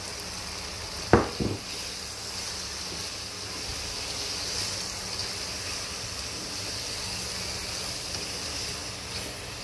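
Chicken mince and vegetables sizzling in a non-stick frying pan as they are stirred with a spatula, with one sharp knock about a second in.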